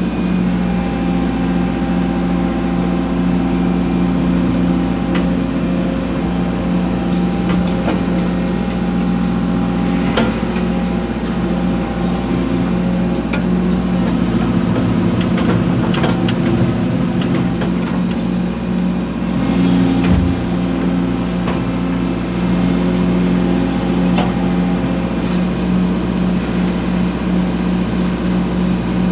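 Excavator's diesel engine running steadily, with a few short clinks and knocks along the way.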